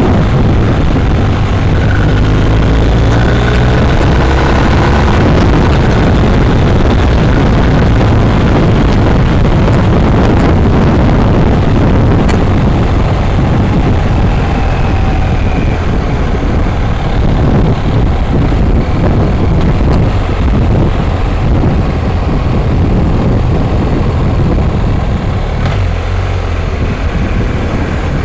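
Motorcycle engine running at road speed under heavy wind noise on the microphone, its note rising and falling faintly with the throttle.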